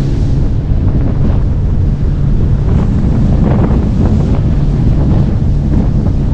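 Wind buffeting the microphone over the steady low hum of a boat motor running.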